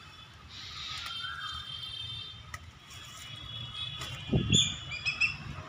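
Birds calling, with steady high notes in the background and a quick series of short chirps near the end. A brief low sound comes just before the chirps.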